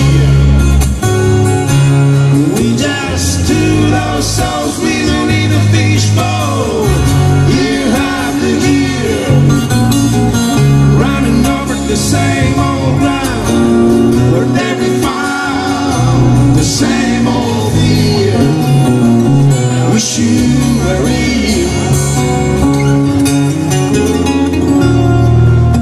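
A live acoustic band playing a song: strummed acoustic guitar over a bass guitar, with a man singing.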